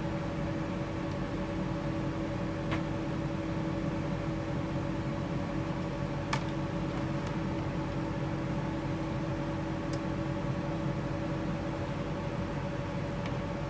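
Small DC motor of a Milwaukee M18 wet/dry vacuum running slowly at low voltage, a steady hum with a few faint clicks. Its front bearing, or possibly a bushing, is worn, and the owner is squirting lube into it while it turns.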